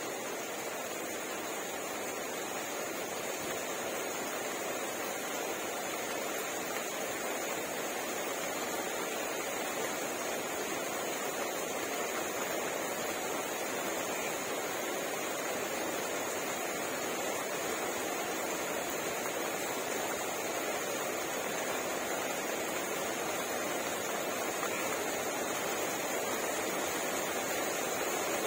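Steady rain falling, an even hiss without breaks that builds slightly in loudness over the stretch.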